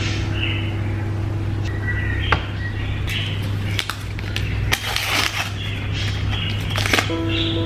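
Packaging being handled: crinkling and rustling with several sharp clicks and taps, over a low steady background hum.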